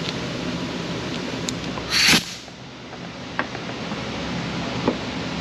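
A short, sharp hiss of compressed air about two seconds in, as a shop-air hose's quick-connect coupler is snapped onto the smoke machine, with a few light clicks of the hose and fittings being handled afterwards.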